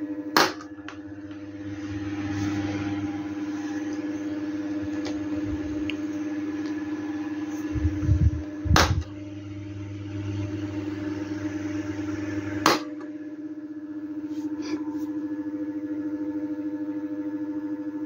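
Electric desk fan running with a steady hum while its push-button speed switches are pressed, giving sharp clicks about half a second in, near nine seconds and near thirteen seconds. After the last click the low rumble under the hum drops away.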